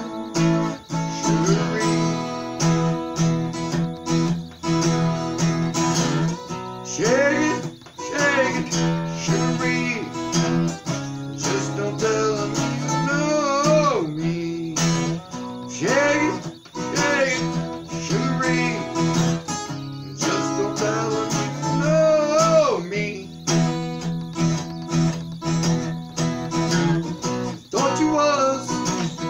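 Acoustic guitar strummed in a steady rhythm, with a man singing along in phrases that come and go.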